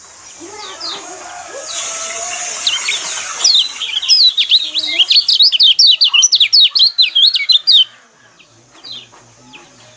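Kecial kuning white-eye song: a loud, fast run of sharp, high twittering chirps lasting about four seconds, starting about three and a half seconds in. Fainter lower bird calls and a hiss come before it.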